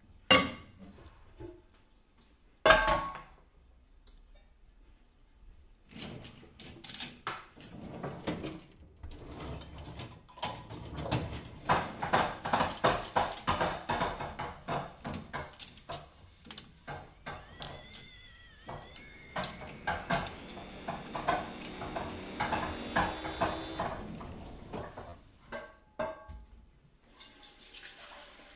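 Two sharp knocks close together, then a long stretch of dense, rapid clattering that swells and fades, with a brief swooping tone about two-thirds of the way through.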